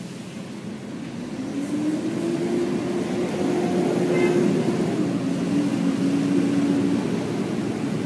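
A motor engine passing by: its hum grows louder over a few seconds, then drops a little in pitch as it goes past.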